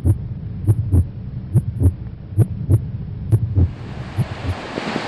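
Heartbeat sound effect for a logo intro: paired low thumps a little more than once a second over a steady low hum, each beat with a faint high tick. Near the end the beats fade as wind on the microphone and breaking surf rise.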